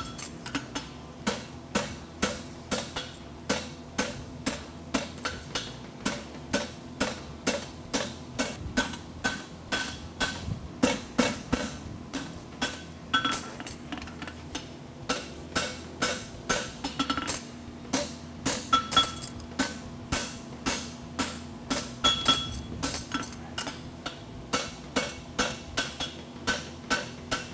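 Hand hammer striking a red-hot steel draft horseshoe on an anvil, shaping the shoe: a steady rhythm of about two to three blows a second, each with a short metallic ring from the anvil.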